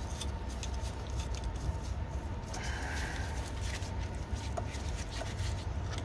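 Faint metal clicks of snap ring pliers being handled and fitted into a snap ring on a load wheel axle, over a steady low hum. A short faint higher sound comes about two and a half seconds in.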